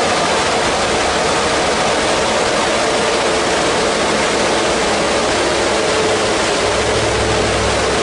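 Audi RS6 with its biturbo V8 running on a chassis dyno, wheels spinning the rollers at a steady speed: a loud, even rush of tyre, roller and engine noise with no rev rise, the low rumble growing slightly near the end.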